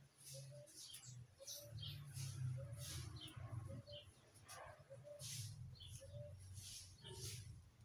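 Faint dove cooing: a short coo repeated about once a second, over light rustling and scraping as leaves and yard debris are handled.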